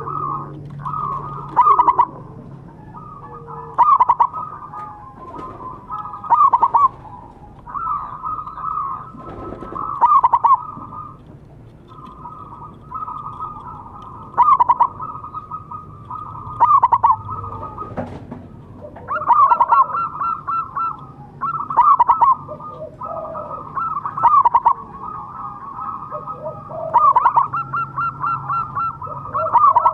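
Zebra dove (perkutut) singing its rapid, stuttering coo phrases, a loud phrase about every two to three seconds with quieter cooing continuing in between.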